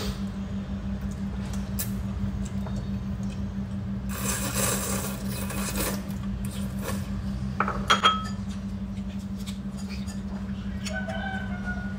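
Ramen noodles being slurped from bowls, with chopsticks and ceramic dishes clinking. There is a longer slurp about four to six seconds in and a sharp clatter of tableware just before eight seconds. A steady low hum runs underneath.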